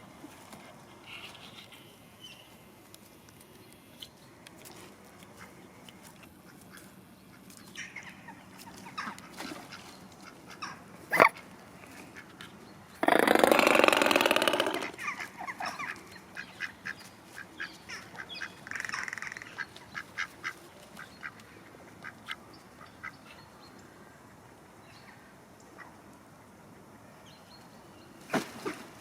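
Mute swans giving short, scattered soft calls. About halfway through there is one loud rushing noise lasting about two seconds.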